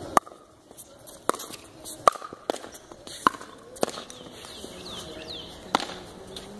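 Pickleball rally: sharp pops of solid paddles striking the hollow plastic ball and the ball bouncing on the hard court, about seven hits at uneven intervals.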